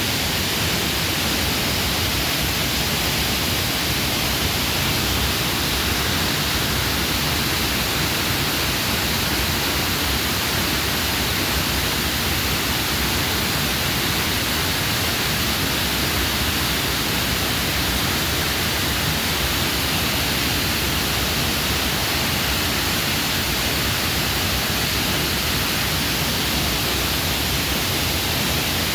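Waterfall: water pouring onto large boulders, a steady, unbroken rush.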